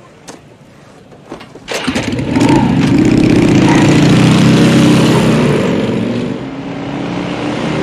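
Harley-Davidson FLSTC Heritage Softail Classic's V-twin engine starting about two seconds in, then running loud and deep as the motorcycle pulls away. It eases off briefly near the end and picks up again.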